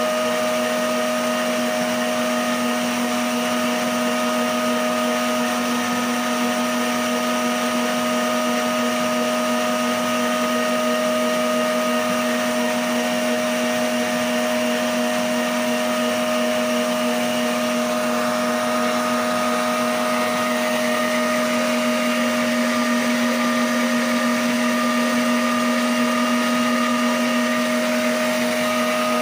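Emsan stand mixer running steadily at one speed, its beater whipping egg yolks to a foam in a stainless steel bowl: a constant motor hum with a steady whine over it.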